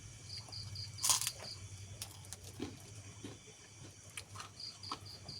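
A cricket chirping in short runs of quick high pulses, with a loud crunch of someone biting into food about a second in and small clicks of chewing and eating.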